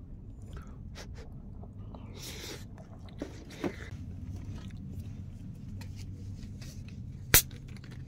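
Close-up eating sounds: chewing, with scattered small clicks of chopsticks and tableware and short rustles. One sharp knock about seven seconds in is the loudest sound.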